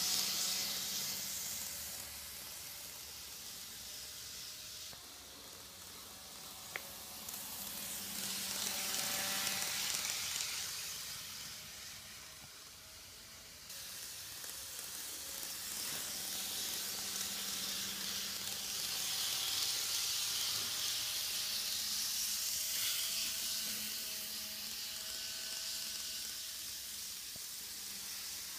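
N-gauge KATO E217-series model electric train running on model track: a hiss of the wheels on the rails with a faint motor whine, swelling as the train passes close and fading as it moves away. A single sharp click about seven seconds in.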